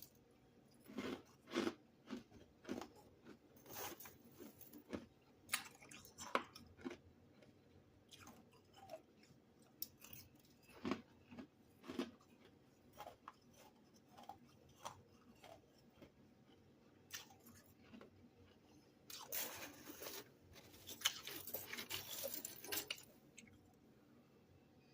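Freezer frost chunks being bitten and chewed: a string of separate crisp crunches, then a denser run of crunching near the end.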